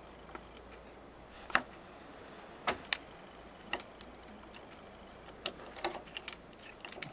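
Irregular sharp metallic clicks and clinks of a wrench and hydraulic hose fittings being worked on a forestry crane's link during a hose change, the sharpest about one and a half seconds in and a quick run of them near the end.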